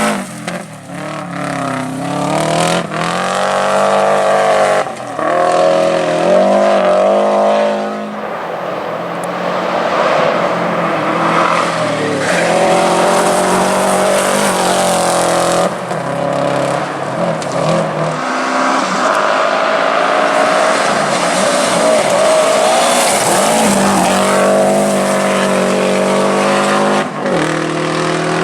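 Subaru WRX rally car's turbocharged flat-four engine driven hard, its note rising under acceleration and falling back many times as the driver lifts and changes gear.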